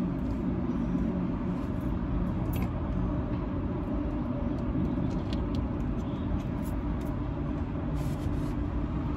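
Steady low vehicle rumble heard inside a car's cabin, with a few faint light clicks.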